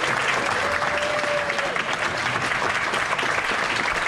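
Audience applauding steadily, with a short held tone about a second in.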